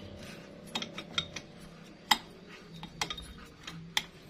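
Metal clinks as a Yamaha Mio's cylinder block is eased by hand down over the piston and the crankcase studs: about five sharp taps, the loudest about two seconds in.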